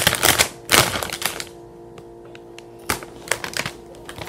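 Snack bag crinkling as it is handled, busy for about the first second and a half, then a few scattered sharp clicks over a faint steady hum.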